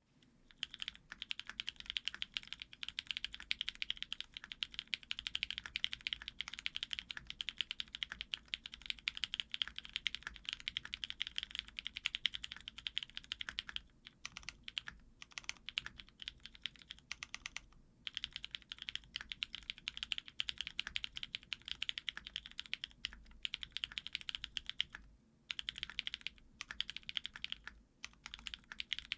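Typing on a custom F1-8X mechanical keyboard with lubed Cherry MX Silver linear switches on an aluminum plate: a fast, continuous run of keystroke clacks. The run thins out with short pauses a little past halfway, and again about 25 seconds in.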